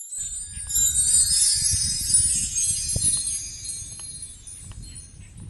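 High, shimmering chime-like ringing, many bell tones struck together that slowly fade out, over a low rumble, typical of a video's intro sound effect.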